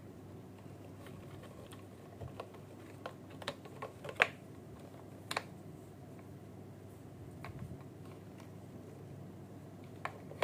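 A bubble-gun toy and its packaging being handled by hand: scattered light clicks and taps, the loudest about four seconds in, over a faint steady low hum.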